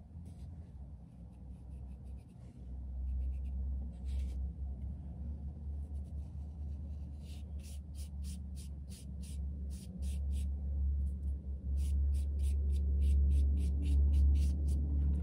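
Foam sponge brush dabbing and stroking acrylic paint onto paper: faint scattered brushing at first, then from about seven seconds in a quick run of short scratchy dabs, about three a second. A low rumble runs underneath and grows louder.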